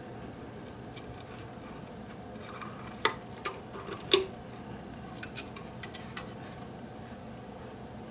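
A handful of sharp clicks and taps, the two loudest about a second apart, from a calico cat's claws and paws on a slatted wooden bench as it shifts into a stalking crouch, over a low steady background hum.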